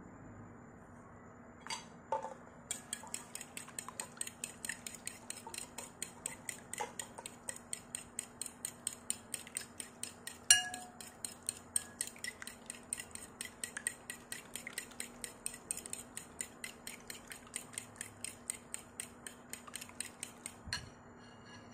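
Metal spoon beating eggs and condensed milk in a ceramic bowl, clinking against the bowl in a fast, even rhythm of about four strokes a second, with one louder clink about halfway through. The beating starts a couple of seconds in and stops near the end.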